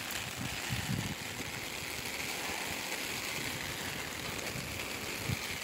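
Steady hiss of heavy rain falling on an umbrella overhead, with a few soft low thumps, one about a second in and one near the end.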